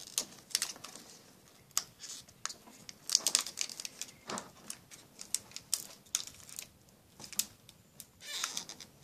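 Pokémon card booster pack and its cards being handled: foil wrapper crinkling and cards clicking and rustling in the hands. The sharp clicks come irregularly, with denser flurries about three seconds in and near the end.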